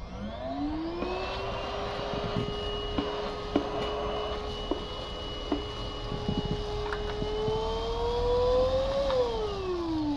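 Dibea D18 cordless stick vacuum's motor spinning up with a rising whine, then running steadily while it sucks up rice grains, which tick and clatter as they are pulled in. The pitch climbs a little before the motor is switched off about nine seconds in and whines down.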